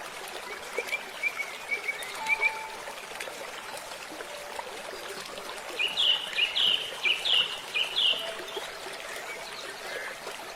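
Small birds chirping over steadily running water. A soft twittering comes in the first few seconds, then a run of loud, sharp chirps repeated about twice a second, around six to eight seconds in.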